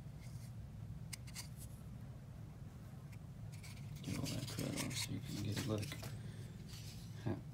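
Hands handling and turning a polymer pistol frame close to the microphone: a few light clicks about a second in, then a burst of rubbing and scraping from fingers and plastic. A low steady hum lies underneath.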